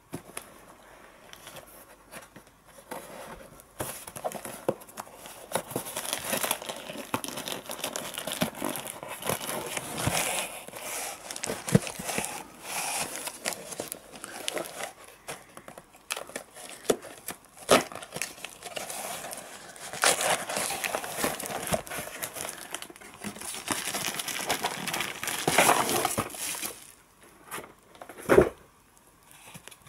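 Cardboard shipping box being opened by hand: packing tape torn and peeled, cardboard scraping and rustling, then a bubble-wrapped package crinkling as it is handled. A single loud knock near the end.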